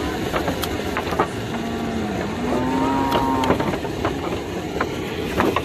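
A calf moos once, a drawn-out call of about two seconds that dips briefly and then holds, with scattered knocks of hooves and bodies against the wooden boards of the cattle chute.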